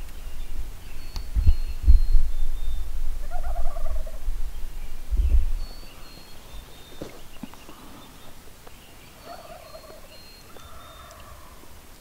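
Merriam's wild turkey gobblers gobbling, a rattling call heard about three seconds in and again around nine to eleven seconds. A low rumble, such as wind on the microphone, sits under the first half and then drops away.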